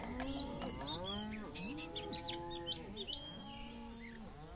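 A herd of cattle mooing, many short calls overlapping one another, with birds chirping faintly above them.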